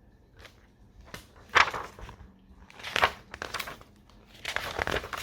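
Pages of a picture book rustling and crinkling as they are handled and turned, in several short bursts.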